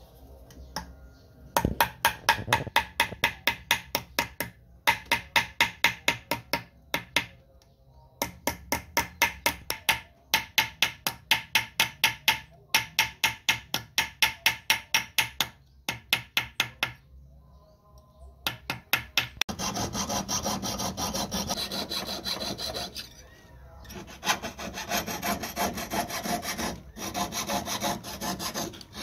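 Hand file rasping across a silver ring in quick, even strokes, about six a second, in runs of a few seconds with short pauses. Near two-thirds of the way through it gives way to a jeweller's piercing saw cutting the silver in fine, rapid strokes.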